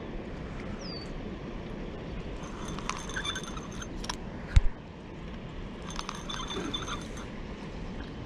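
Zebco 33 spincast reel cranked to bring in a hooked fish. It gives two spells of rapid metallic clicking and rattling, about two and a half and six seconds in, over a steady background rush, with one sharp knock about four and a half seconds in.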